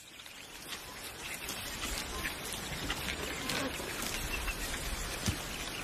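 Warthog piglets grazing: a steady crackling rustle of dry grass being cropped, with many small ticks.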